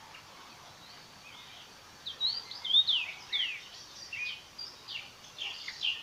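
Birds singing: a quick series of short chirps and downward-sliding whistles begins about two seconds in, over a faint steady outdoor hiss.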